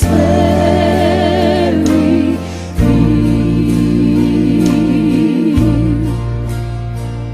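Background choral music: sustained voices singing with vibrato over steady low bass chords, with a change of chord about three seconds in.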